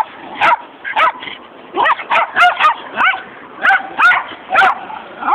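A pack of Jack Russell terriers barking together in a rapid, high-pitched chorus: about a dozen short yapping barks, often two or three close together.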